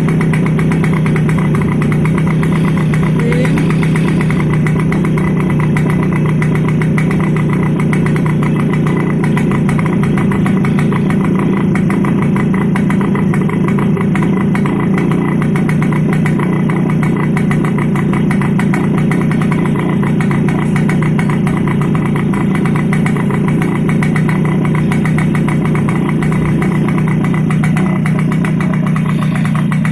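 TVS XL Super Heavy Duty moped's single-cylinder engine idling steadily during carburettor tuning.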